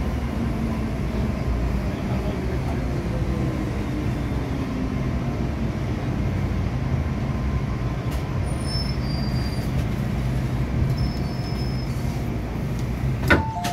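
MTR M-Train heard from inside the car: a steady rumble of wheels and running gear, with a motor tone falling in pitch as the train slows. Near the end comes a sharp clunk, then short chime tones.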